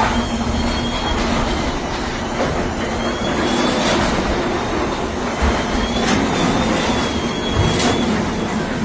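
Garage door rolling along its tracks, with a steady rumbling rattle of the rollers and a few sharp clicks.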